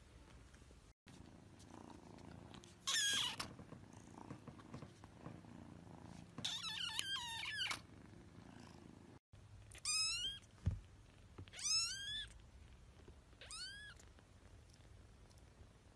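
Young kittens mewing in high-pitched cries: two longer, wavering cries over a low steady purr, then three short mews that rise and fall, about two seconds apart. A single thump sounds among the short mews.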